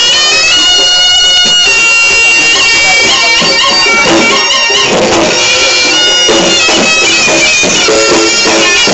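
Reog Ponorogo accompaniment led by the slompret, a nasal double-reed shawm, playing a held, wavering melody of long sustained notes.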